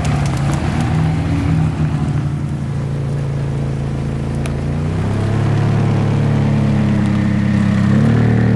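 Two McLaren supercars' twin-turbo V8 engines running at low revs as the cars roll slowly past one after the other. The engine note steps up about five seconds in and again near the end.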